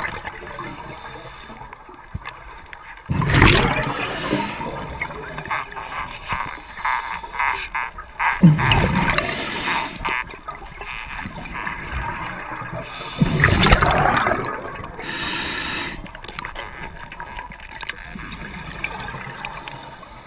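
Scuba diver's exhaled bubbles rushing and gurgling underwater, in loud bursts about every five seconds, with a softer wash of water noise between them.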